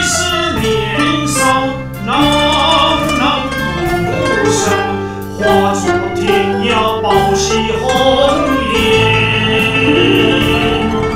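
A slow Mandarin ballad: a solo voice sings over the singer's own instrumental accompaniment.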